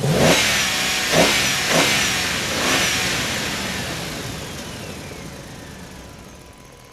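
Cartoon engine sound effect: a vehicle engine revving in four quick surges, then running on and fading away over several seconds.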